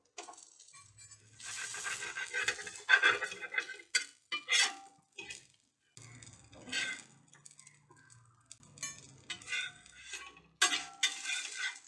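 Metal kitchen utensils clinking and scraping against pans and dishes, in several irregular bouts of clatter with short pauses between them.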